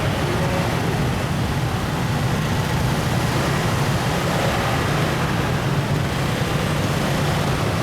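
Steady vehicle rumble from car engine and road noise, even throughout with no distinct bangs or horns.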